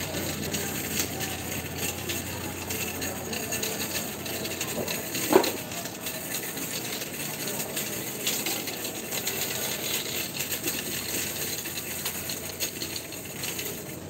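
Supermarket background noise: a steady store hubbub with scattered metallic clinks and rattles, and one brief louder knock about five seconds in.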